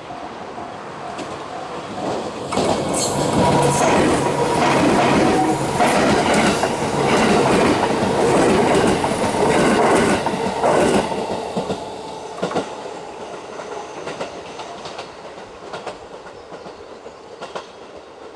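JR West 221 series electric train passing over a level crossing. It comes up about two seconds in and runs loud for about eight seconds, its wheels clattering over the rail joints under a steady motor tone, then fades away. A level-crossing bell's repeated dings trail off at the very start.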